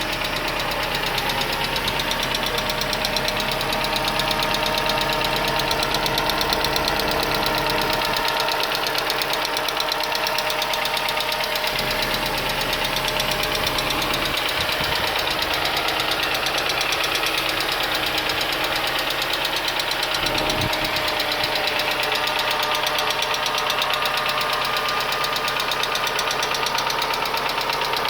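Mercedes C180 W202's four-cylinder petrol engine running steadily with a fast, even ticking clatter from the valve train, which the owner suspects is the hydraulic lifters rattling.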